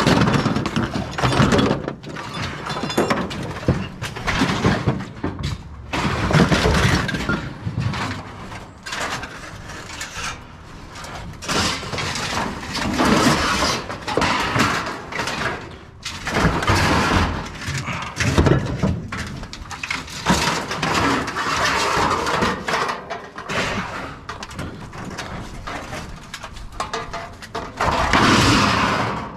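Loose shred scrap metal being tossed and dumped onto a pile, clattering and crashing in loud repeated bursts with short pauses between loads.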